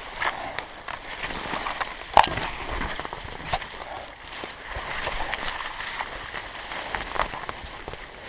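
Steps and bodies pushing through undergrowth: dry leaf litter crunching and branches brushing past in a steady crackle, with a sharper snap, like a twig breaking, about two seconds in.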